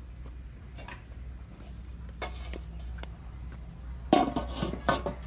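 An aluminium pot lid clanking against the rim of a large metal wok, with two sharp clatters near the end.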